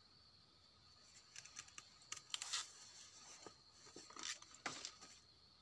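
Faint, scattered rustling and crackling of vegetation, in a few short clusters of small clicks.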